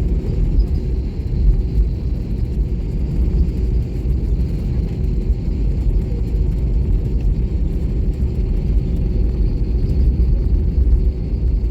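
Steady low rumble inside an airliner cabin as the plane taxis after landing: idling jet engines and the wheels rolling on the taxiway.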